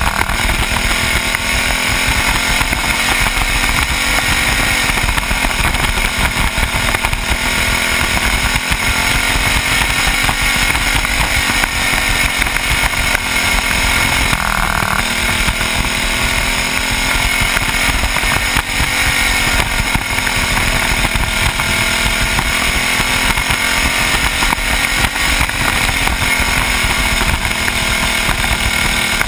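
Small single-cylinder kart engine running hard, heard from on board the kart, its pitch dropping in the turns and climbing again down the straights, over and over lap after lap.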